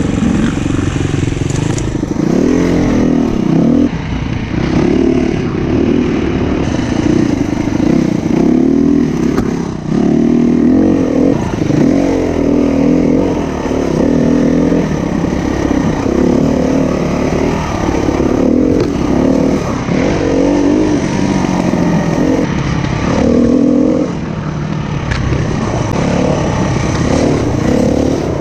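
SWM 300RS enduro motorcycle's single-cylinder engine being ridden, revving up and dropping back again and again as the throttle opens and closes, every second or two.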